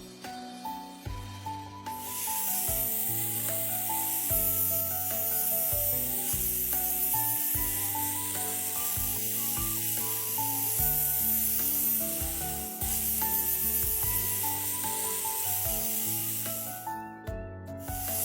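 Background music with a bass line and stepping melody, over a steady hissing noise that starts about two seconds in and breaks off briefly about a second before the end.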